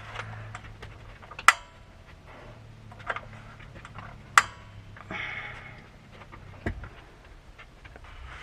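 A few sharp clinks and knocks of dishes or cooking utensils being handled, two of them louder, over a low steady hum.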